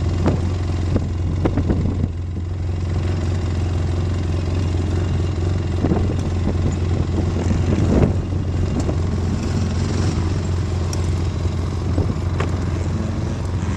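Small ATV engine running with a steady low drone, its pitch holding even, as the quad works in soft sand. A few short clatters come about six and eight seconds in.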